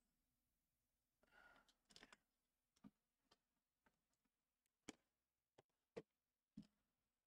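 Faint, scattered clicks and taps of trading cards and boxes being handled and set down on a table, with a soft rustle just over a second in.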